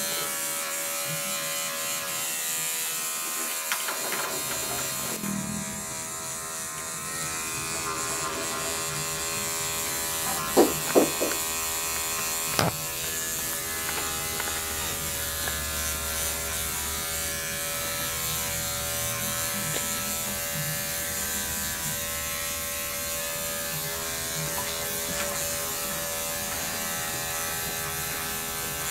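Andis five-speed electric dog clipper running steadily with a buzzing hum as it trims a dog's coat. Three brief, loud sharp sounds stand out, two close together about a third of the way in and one more a second and a half later.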